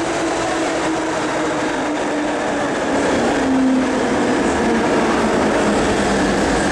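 MTR M-Train electric multiple unit running into a station platform, its traction motor whine falling steadily in pitch as the train slows, over a steady rumble from the running gear.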